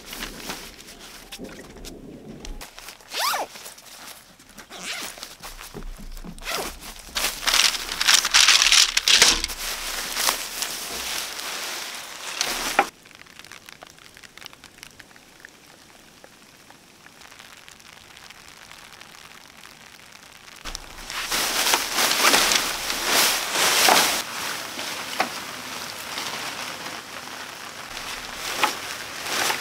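Rustling and handling noises of fabric and gear, coming in irregular bursts, with a quieter stretch in the middle.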